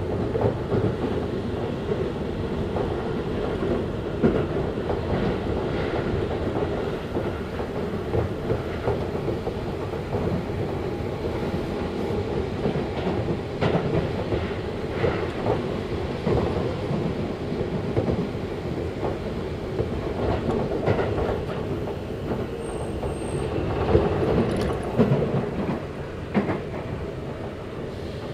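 Running noise heard from inside a Seibu Ikebukuro Line electric commuter train: a steady rumble of wheels on rail, with scattered clacks over the rail joints, a few louder ones near the end.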